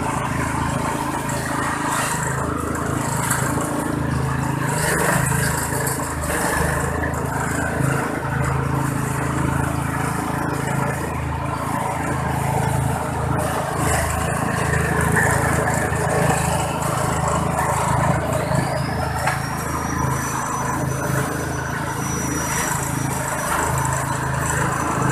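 Organic-waste shredder powered by a small engine, running steadily under load as it chops vegetables into fine shreds.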